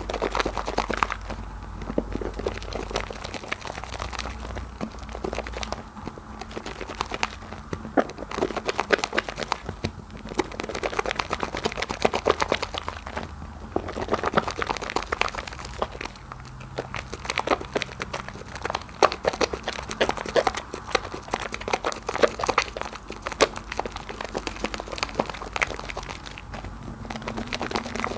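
Wet soap being worked in thick foam: rapid squishing and crackling of bursting bubbles, coming in waves that ease off every few seconds.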